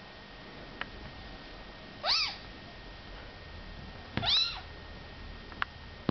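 Kittens play-fighting: two short, high mews about two seconds apart, each rising then falling in pitch, with a few brief sharp clicks between them.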